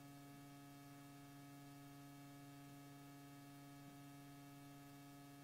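A faint, steady low hum with a stack of even overtones, starting suddenly just before and cutting off near the end.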